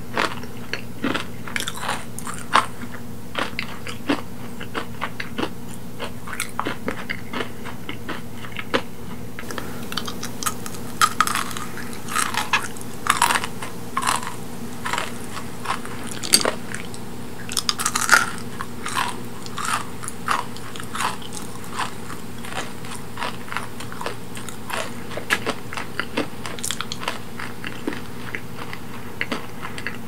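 Close-miked chewing of kohakutou, Japanese crystal candy cubes: a run of many small crisp crunches as the sugar crust breaks between the teeth, busiest in the middle part of the stretch.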